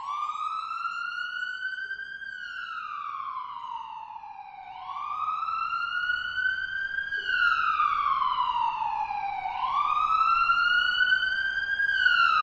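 Police siren wailing, its pitch sliding slowly up and down three times, about five seconds per cycle. It cuts off suddenly at the end.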